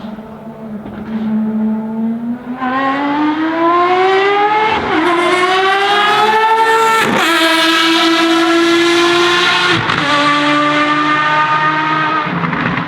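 Ferrari FXX Evoluzione's V12 engine accelerating hard on track. The note climbs and drops suddenly at each upshift, about three times, and grows loud as the car comes near.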